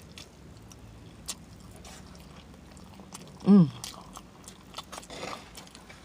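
A person chewing food with wet mouth clicks and lip smacks, and a short pitched vocal sound that dips and rises about halfway through.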